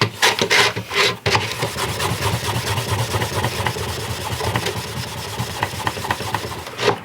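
Track-polishing tool scrubbing along a section of G gauge model railway track, cleaning the rails: a steady abrasive rubbing that follows a few knocks as the track is handled.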